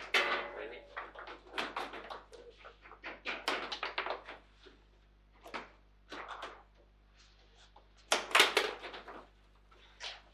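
Table football being played: quick, irregular clacks and knocks of the ball striking the plastic figures and the table walls, with rods thudding against their stops, loudest in a burst about eight seconds in.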